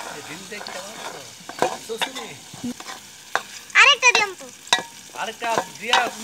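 A metal spoon stirs and scrapes around a small aluminium bowl of chopped tomato and egg frying in oil over a wood fire, with a steady sizzle under the scraping strokes. Short high-pitched wavering calls cut in about four seconds in and again near the end.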